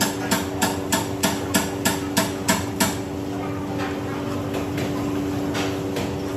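Sharp, evenly spaced taps, about three a second, which stop about three seconds in, over a steady hum.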